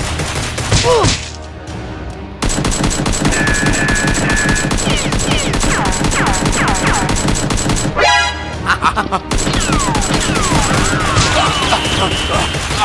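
Rapid, sustained gunfire: a dense string of shots that starts suddenly about two seconds in and runs on, with a short break near the middle and gliding whistles over it.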